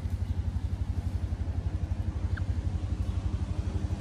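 Small engine idling with a steady, rapid low putter. A faint short chirp about two and a half seconds in.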